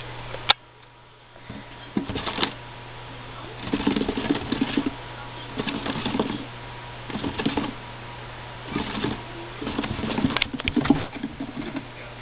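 A sharp click about half a second in, then a small pet rodent in a blue plastic hideout making low, repeated grunting calls in short bursts every second or two, over a steady background hum.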